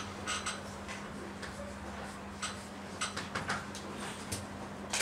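Chalk on a blackboard while lines are drawn: a string of short taps and brief scratchy strokes, irregularly spaced, over a steady low electrical hum.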